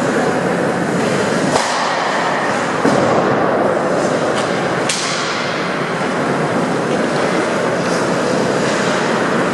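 Ice hockey game in an arena: a steady wash of noise from skates on the ice and the rink, broken by two sharp cracks of sticks or puck, about a second and a half in and about five seconds in, the second ringing on in the arena.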